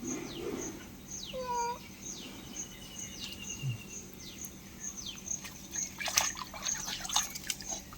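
Small birds chirping over and over with high, falling calls, and a cat giving one short meow about a second and a half in. A cluster of sharp clicks follows near the end.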